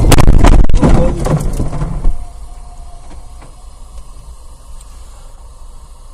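A loud burst of knocks and clatter for about two seconds, then a quiet low hum inside a car slowing almost to a stop.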